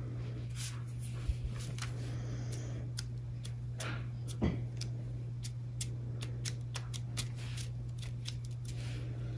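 Scattered light clicks and paper rustles as fingers press a paint-covered plantain leaf onto a sheet of paper, over a steady low hum.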